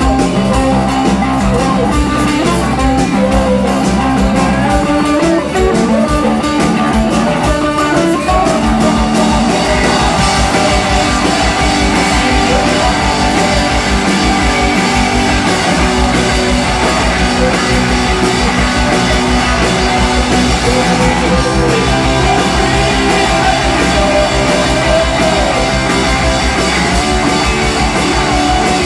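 Live rock band playing loud, with electric guitars over bass and drums.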